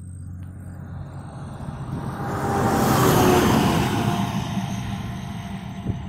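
A motor vehicle passing on the road. Its tyre and engine noise swells, is loudest about three seconds in, then fades away.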